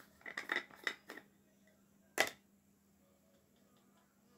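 Makeup containers and tools being handled on a table: a quick cluster of small clicks and taps, then one sharper, louder click about two seconds in.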